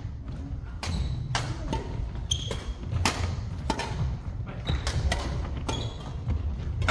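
Badminton rackets striking a shuttlecock in sharp cracks at an irregular pace during a doubles rally, with short squeaks of court shoes on the wooden floor and low thudding footfalls.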